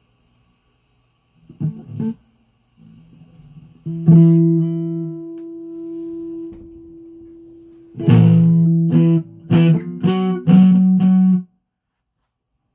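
Guitar strings plucked a few times. One note struck about four seconds in rings on for several seconds, then a quick run of plucked notes near the end stops abruptly.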